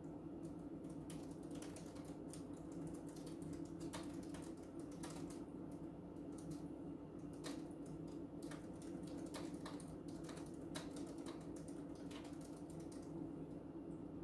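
Fingers typing on a computer keyboard in an uneven patter of key clicks, stopping about a second before the end, over a steady low background hum.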